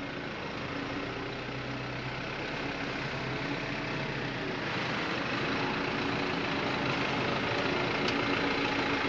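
Isuzu NPS 4x4 truck's four-cylinder turbodiesel running at low revs as the truck crawls along a dirt track towing a caravan, with tyre noise on the dirt. The sound grows gradually louder as the truck comes closer.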